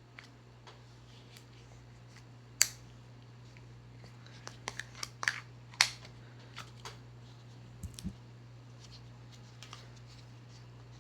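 Scattered sharp clicks and snaps of small objects being handled, two louder snaps about two and a half and six seconds in, over a steady low hum.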